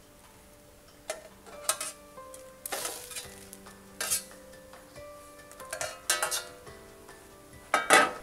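Metal skimmer scraping and clinking against a stainless steel tray and pot as gnocchi are pushed into boiling water: a string of short scrapes, the loudest near the end. Soft background music under it.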